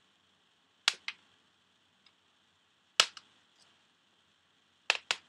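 Glass ink bottles set down one by one on a hard tabletop: sharp clacks in three close pairs, about two seconds apart.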